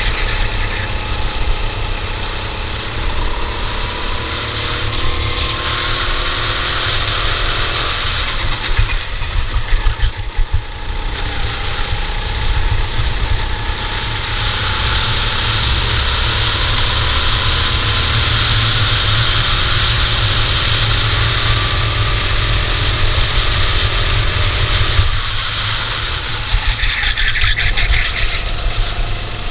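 Racing kart engine on a cadet kart at race pace, its pitch climbing steadily and dropping back twice, about ten seconds in and near the end, as it comes off the throttle. A heavy low rumble runs underneath.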